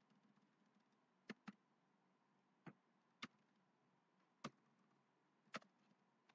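Faint, scattered clicks of a computer keyboard and mouse, about six sharp clicks spaced unevenly over a few seconds, against near silence.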